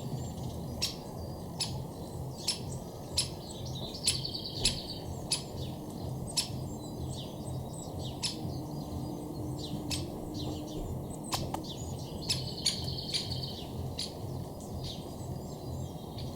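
Birds singing and chirping, with a sharp, short call repeated about once a second, over a steady low rumble.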